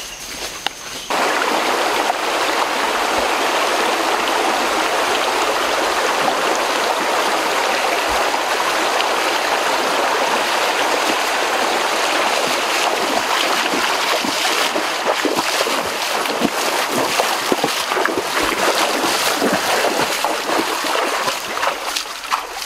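Flowing stream water making a steady rush that starts about a second in, with irregular splashes in the second half.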